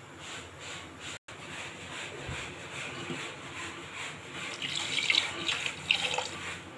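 Warm water poured into a pressure cooker of chicken curry gravy, splashing into the liquid; the pour grows louder and splashier about four and a half seconds in.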